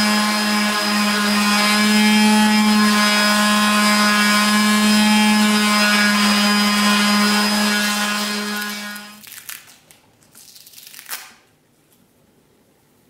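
Hilti WFO 280 orbital sander clamped upside down in a vise, running at a steady pitch while a knife's wooden handle is pressed to its fine-grit sanding pad. About nine seconds in it is switched off and winds down, followed by a few faint knocks from handling.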